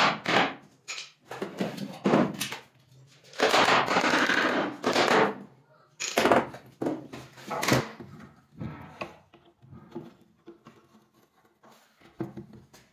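A wooden drawer box being handled and worked on a tiled floor: an irregular run of knocks and scraping, some of it hammer work, loudest in the first eight seconds and fainter after.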